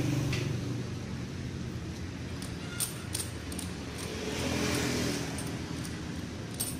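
Spark-plug socket wrench working the spark plug loose from a Honda Win motorcycle engine: a few sharp metallic clicks, over a steady low hum.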